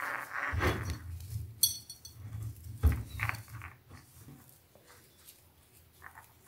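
Soft rustling and a few light knocks as a crocheted cotton cover is worked down over a glass jar by hand, mostly in the first few seconds.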